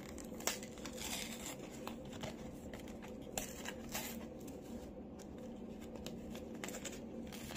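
Cardboard backing of a microSD card's blister pack being torn open by hand, with faint, irregular short rips and crinkling of card and plastic.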